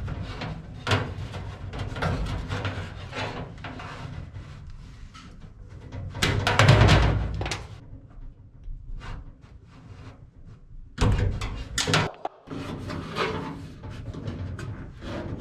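Handling noise as plastic static-line tubing is fed by hand through holes in an aluminum airframe: irregular rubbing, scraping and light knocks against the sheet metal. The loudest stretches come about seven seconds in and again around eleven seconds.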